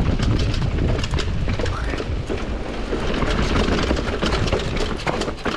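Mountain bike clattering down a rocky technical trail: the tyres and frame take a quick run of sharp knocks over the rocks, above a steady low rumble.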